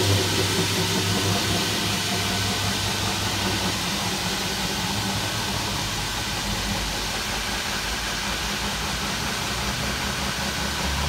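Hilti core drill running steadily while boring through the concrete and block wall, a constant rushing noise over a low motor hum.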